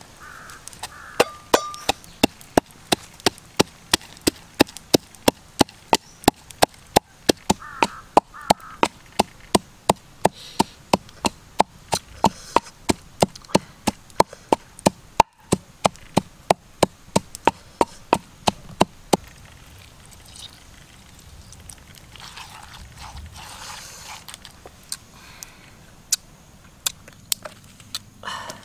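A pestle pounding red chilies and garlic in a wooden mortar: steady, sharp knocks about two a second that stop about two-thirds of the way through, followed by a few scattered lighter knocks.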